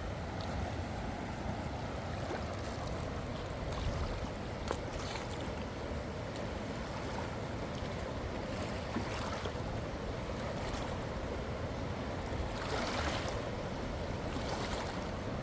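Strong wind rushing and buffeting the microphone over a steady wash of water, with a few brief louder surges about four, nine and thirteen seconds in.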